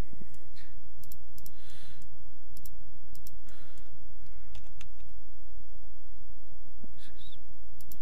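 Computer keyboard keystrokes and mouse clicks, scattered and irregular, over a steady low hum.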